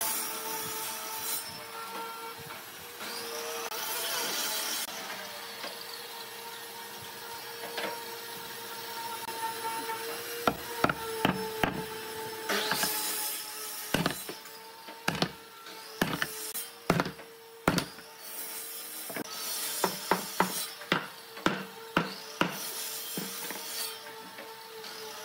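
Squeezes of a wood-glue bottle, then a run of sharp, irregular wooden knocks from about ten seconds in, as a heavy wooden column is set onto and knocked down into its glued base. A steady hum runs underneath.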